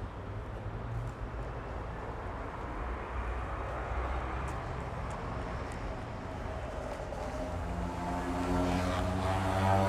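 Busy street traffic: a steady wash of vehicle noise and low rumble. In the last couple of seconds a single vehicle's engine drone rises out of it and gets louder as the vehicle comes close.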